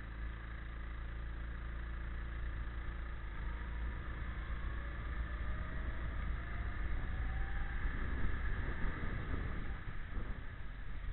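Go-kart engine running on track, heard from on board the kart, its note rising over a few seconds and getting rougher and louder about eight seconds in.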